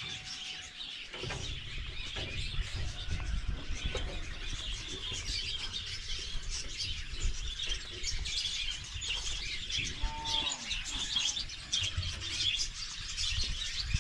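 Many small birds chirping continuously in a dense chorus, with a brief lower call about ten seconds in and a low rumble of handling noise underneath.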